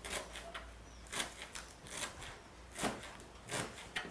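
Kitchen knife chopping fresh green onion and parsley on a cutting board: a dozen or so sharp, irregular knife strokes on the board.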